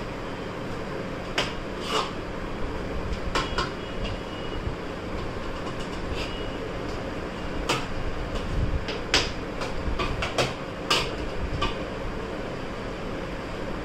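A metal spoon clinking and scraping against a steel bowl while stirring a crumbly churma mixture: about a dozen irregular, ringing clinks. A fan's steady hum runs underneath.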